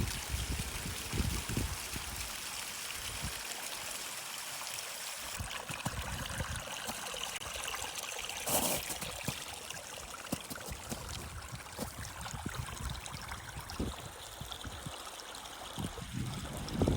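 Stream water running steadily, with scattered low knocks and a short, louder rush of noise about eight and a half seconds in.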